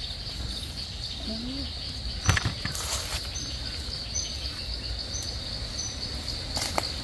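Steady high-pitched insect drone with short high chirps every second or so. A few sharp cracks and clicks, as from dry leaf litter and twigs being handled underfoot; the loudest comes about two seconds in.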